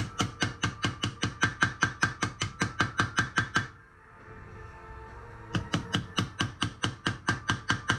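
Rapid hammer blows setting steel rivets through a steel breastplate, about five strikes a second. One run lasts about three and a half seconds, there is a short pause, and a second run starts about two seconds later and goes on to the end.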